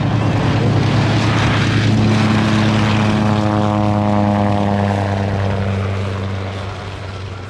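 Antonov An-2 biplane's nine-cylinder Shvetsov ASh-62IR radial engine and propeller running at climb power just after lift-off, loud as the plane passes close overhead. The pitch drops slightly as it goes by, and the sound fades from about five seconds in as it climbs away.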